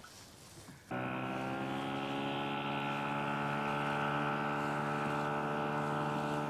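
An electric motor on a fishing boat switches on abruptly about a second in and then runs with a steady, even whine.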